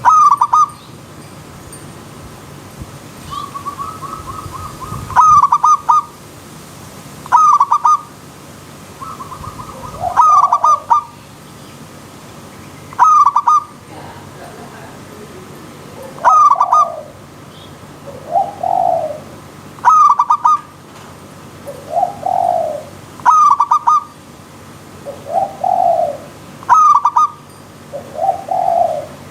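Zebra dove (perkutut) singing its rapid, stuttering coo phrase over and over, about every three seconds, with a lower, rounder coo answering between phrases in the second half. A steady hiss of running stream water runs underneath.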